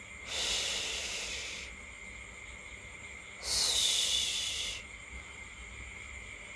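Two long breaths blown by mouth into a latex balloon, each about a second and a half. The second is louder, with a high whistle sliding down in pitch as it starts.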